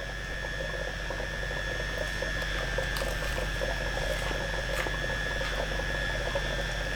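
A steady mechanical hum with a constant high whine and a faint, fine crackle, with no change over the stretch.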